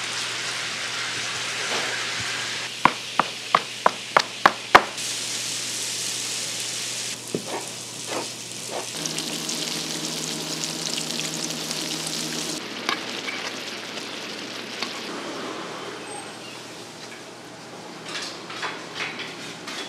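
Dough strips frying in hot oil with a steady sizzle, changing abruptly at several cuts. A quick run of about seven sharp knocks comes around three to five seconds in, and it grows quieter with a few clatters near the end.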